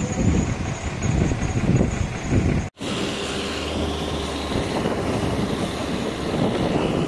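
Mobile crane engine running, uneven at first. The sound cuts out for an instant about two and a half seconds in, then goes on steadier.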